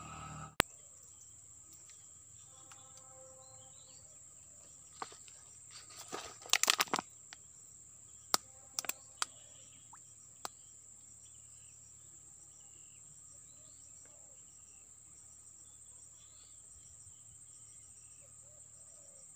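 Steady high-pitched insect drone with faint bird chirps now and then. About six seconds in comes a short burst of rustling and sharp clicks, followed by a few single clicks.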